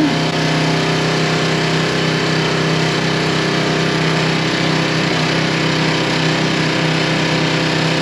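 Small engine of a motor pump running steadily, pumping water and sand out of a pile casing during the final pumping before the concrete pour.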